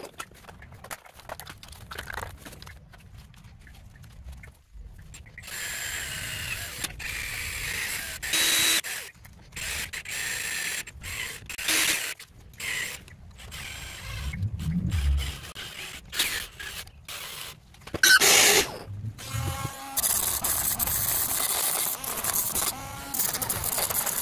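Handheld power tool cutting through battery-pack busbars in repeated bursts of a few seconds, starting and stopping, with a longer, louder cut near the end.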